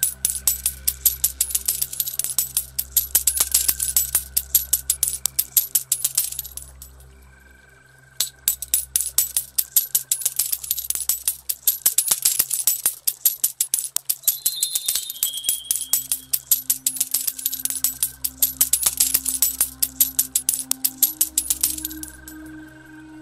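Metal coins clinking and jingling in a dense, rapid stream, as if a shower of coins were pouring down, pausing briefly about a third of the way in. Underneath is soft music with held low notes.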